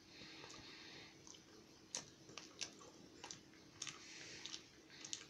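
Faint chewing of a peanut butter English muffin sandwich, with soft, irregular mouth clicks every half second or so from about two seconds in.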